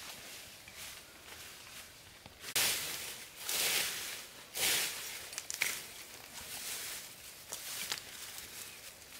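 Fern fronds and leafy branches rustling and swishing as they are handled and pushed into place on the shelter. It comes in a few short bursts, loudest through the middle, with small crackles and snaps after.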